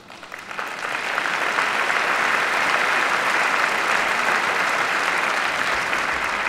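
A large audience applauding. The clapping swells over the first second or so, then holds steady.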